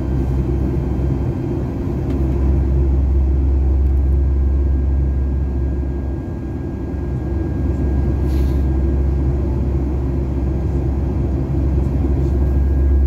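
Boeing 737 passenger cabin in flight: the steady low rumble of the engines and the air rushing past the fuselage, with a faint, thin, steady high tone above it.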